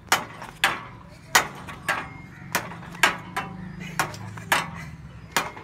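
Metal playground seesaw knocking and clanking as it rocks, sharp knocks at an uneven pace of about two a second.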